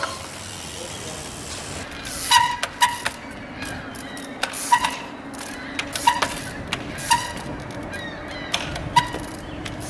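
Trials bike hopping on its rear wheel: a sharp clack with a short squeak roughly once a second, at uneven spacing, over a steady low hum.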